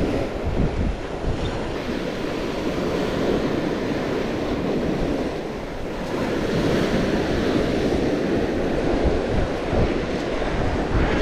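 Ocean surf breaking and washing up a sandy beach, a steady rush of waves, with wind rumbling on the microphone.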